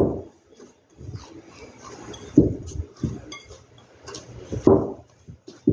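Hands kneading a ball of cheese dough in a glass dish: about six irregular soft thumps and pushes, roughly one a second, with the glass dish clinking and knocking under the strokes.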